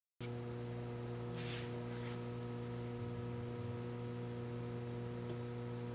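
Steady electrical mains hum with a stack of even overtones, cutting in abruptly just after a moment of dead silence, with a few faint soft rustles over it.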